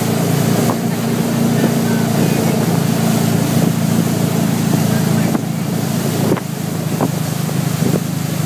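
Motorboat engine running steadily at speed while towing, with wind buffeting the microphone and the rush of the boat's wake.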